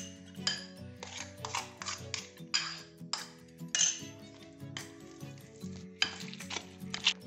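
Metal wire potato masher mashing potatoes in a glass bowl, scraping and clinking against the glass in repeated strokes a couple of times a second. Soft background music underneath.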